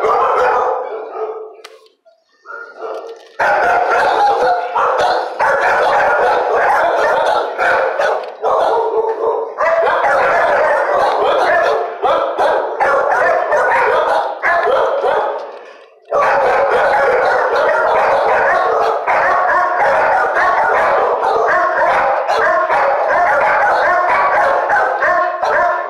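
Many dogs barking at once in shelter kennels, a loud, continuous din of overlapping barks with brief lulls about two, nine and sixteen seconds in.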